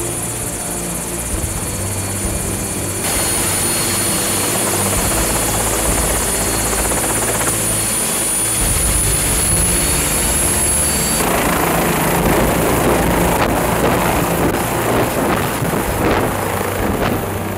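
Helicopter running on the ground with a high turbine whine over the rotor noise. About eleven seconds in, the rotor noise grows louder and rougher as it lifts off.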